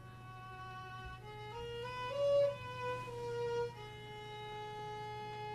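Solo violin playing a slow melody of long, held notes that step up and down.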